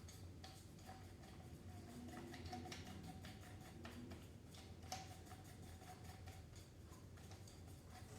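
Faint light clicks and handling noise as a threaded plastic side handle is screwed back onto a rotary hammer drill, with a slightly louder click about five seconds in.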